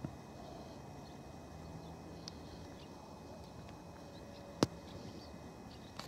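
Faint outdoor ambience with a few soft, short high calls from common redpolls, and one sharp click about three-quarters of the way through.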